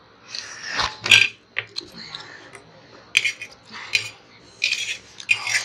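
Metal forks clinking and scraping on stainless steel plates of noodles: a handful of short, sharp clinks spread through.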